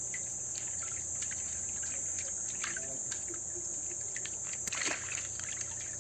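Steady high-pitched shrilling of insects in the shoreline trees, with small water splashes and clicks at the rocky water's edge and one brief louder splash about five seconds in.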